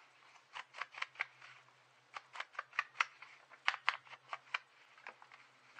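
Paper and craft pieces being handled and glued down on a desk: a run of sharp, irregular clicks and taps.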